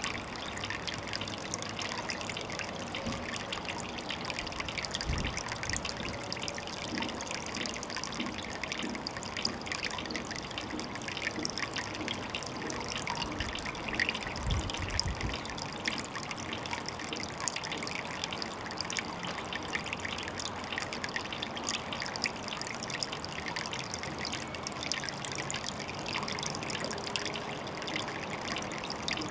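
Water trickling steadily at a pond, a constant fine splashing. Two brief low thuds come about five seconds in and about halfway through.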